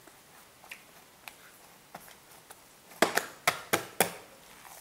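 Hand punching down and degassing risen whole-wheat sourdough dough in a glass bowl: a few faint ticks, then a quick run of about five sharp, sticky slaps about three seconds in.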